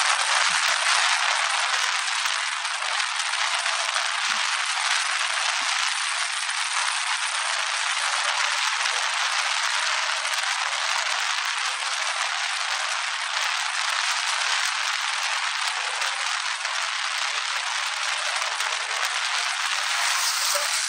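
Steady rushing hiss of wind noise on a camera mounted outside a car moving at freeway speed; no engine note comes through.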